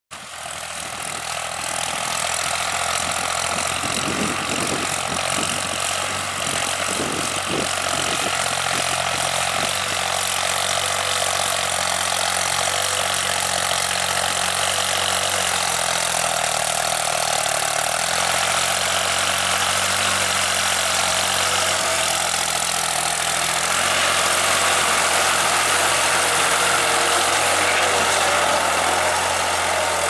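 New Holland tractor's diesel engine running steadily under load while pulling a tine cultivator through the soil. The sound fades in over the first two seconds.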